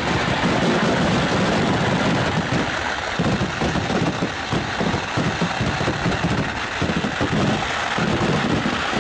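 A dense, unbroken barrage of vedikkettu firecrackers, the blasts running together into a continuous crackling rumble.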